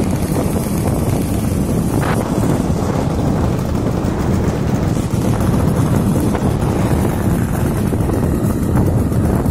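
Wind buffeting the microphone over a motor scooter's engine running steadily while riding along.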